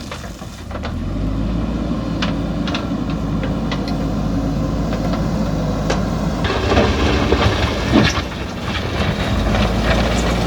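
JCB backhoe loader's diesel engine running steadily, with scattered knocks and clanks of the bucket working soil and stone. A louder stretch of clatter comes about two-thirds of the way through, ending in a sharp knock.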